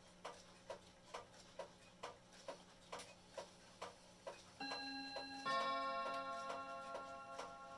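Herschede Bim-Bam mantel clock ticking about twice a second; the owner says it is out of beat. About four and a half seconds in, a chime hammer strikes one of its chime rods, and under a second later a second rod answers with a different note, the bim-bam strike. Both rods ring on and slowly fade.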